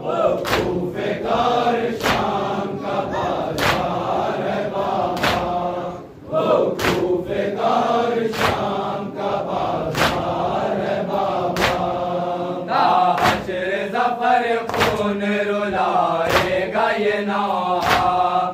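Men of an anjuman chanting an Urdu nauha (Shia lament) together, kept in time by matam: open-handed chest-beating slaps about every 0.8 seconds. The chant breaks briefly for a breath about six seconds in.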